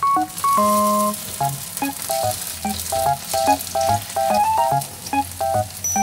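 Tofu slices frying in hot oil in a pan, a steady sizzle, under light background music of short melodic notes.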